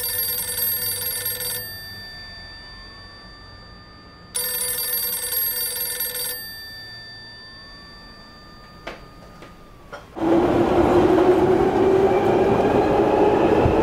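A telephone-like bell ring sounds twice, each about two seconds long. About ten seconds in, a London Underground train starts up loud and steady, heard from inside the carriage, with a tone that slowly rises.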